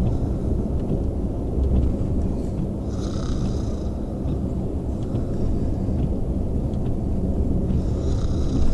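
A person snoring: a continuous low, rough rumble with no pauses.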